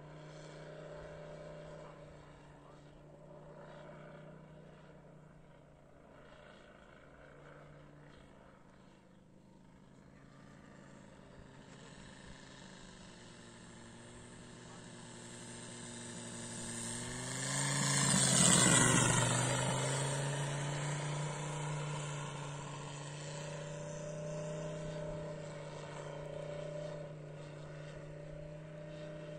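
Valach VM 250 R5 five-cylinder four-stroke radial engine of a large model Fokker D.XXI running in flight, its note wavering with throttle. It grows louder as the plane comes in low, peaks about 18 seconds in with the pitch dropping as it passes, then fades somewhat as it flies away.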